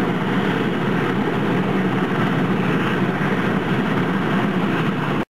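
Westland Sea King search-and-rescue helicopter running on the ground close by, its twin turbine engines and rotors making a steady, loud noise that cuts off abruptly near the end.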